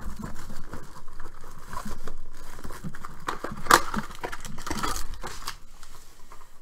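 Cardboard trading-card box being torn open and its foil-wrapped pack pulled out: irregular crinkling and tearing of cardboard and foil, with one sharper snap a little past halfway.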